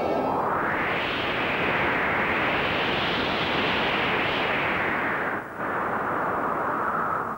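A steady rushing noise effect, like wind or static, on a film soundtrack. Its hiss brightens about a second in and drops out briefly around five and a half seconds in.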